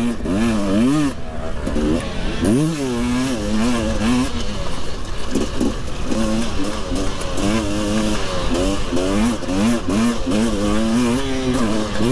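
Husqvarna motocross bike's engine, heard from on the bike, revving up and dropping back over and over, roughly once a second, as the throttle is worked through ruts and turns.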